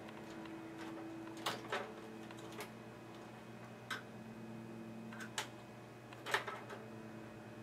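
Scattered light clicks and knocks of a cable-bundling metal clip and cables being pried up and handled inside a desktop computer case, over a steady low hum.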